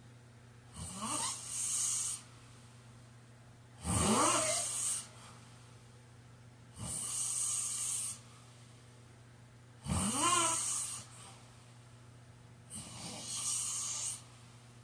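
A man snoring in a steady rhythm: five snores about three seconds apart, each lasting about a second. Several carry a rattling tone that rises in pitch, the loudest about four and ten seconds in.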